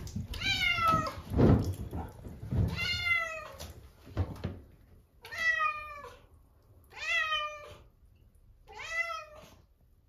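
Domestic cat meowing five times, each meow drawn out and falling in pitch, about every two seconds. A few low thumps come between the first calls.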